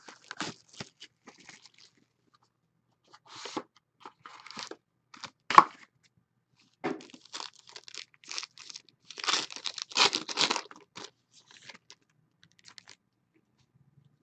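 Trading card box and its pack wrapper being torn open: scattered tearing and crinkling, loudest from about nine to eleven seconds in, with one sharp snap about five and a half seconds in.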